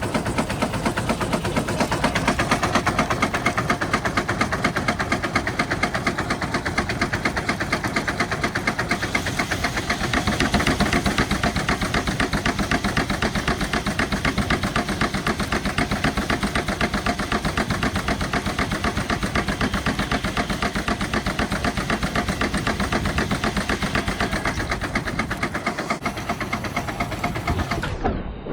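Steam traction engine running, its exhaust and cylinder thumping away in a fast, even beat.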